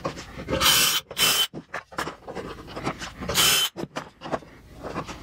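Cordless drill boring pocket holes through a Kreg pocket-hole jig into the end of a wooden board: two bursts, each about a second long, of the step bit cutting wood, with a steady whine from the drill.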